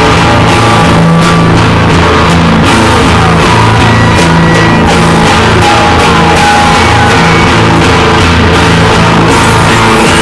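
Loud, dense heavy rock music that runs on without a break.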